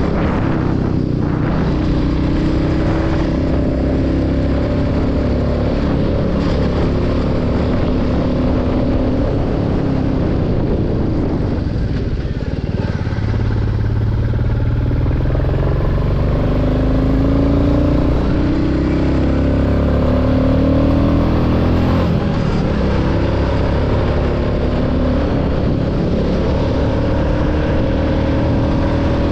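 Royal Enfield Classic 350's single-cylinder engine running under way, its pitch rising and falling with the throttle. It eases off about twelve seconds in, then pulls up again. The engine has about 35,000 km on it.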